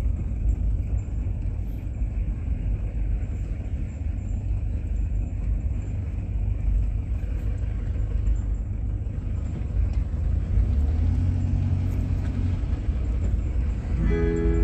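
Car engine and tyre rumble heard from inside the cabin while driving on a dirt road, a steady low drone with the engine note swelling about ten seconds in. Music starts near the end.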